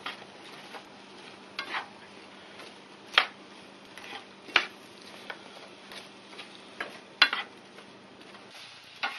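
Wooden spoon stirring broccoli in a nonstick frying pan over a faint steady sizzle, with four sharp knocks of the spoon against the pan.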